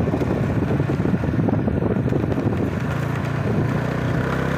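Vehicle engine running steadily on the move, with road and wind noise on the microphone.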